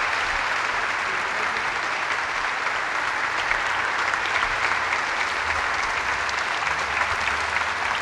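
A large crowd applauding steadily after a speech ends.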